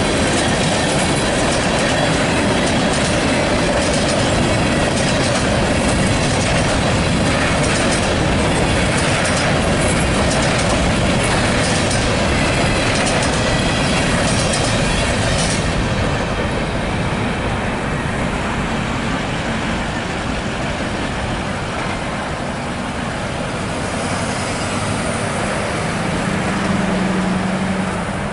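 Loaded freight cars (tank cars and covered hoppers) rolling past over a level crossing, a steady rumble of wheels on rail. The noise eases and loses its hiss after about sixteen seconds as the end of the train passes. Near the end a low engine hum comes in from a pickup truck crossing the tracks.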